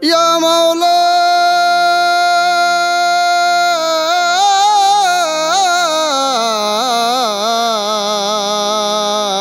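A solo voice sings one long held note, then from about four seconds in winds slowly downward in wavering, ornamented turns over a steady low drone: the slow free-time opening of a Baul devotional song.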